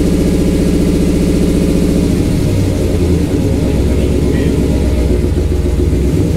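5.7-litre HEMI V8 idling high, around 950 to 1,000 rpm, because of a vacuum leak in the brake booster. About two seconds in, the idle drops and settles lower as the booster's vacuum line is pinched off.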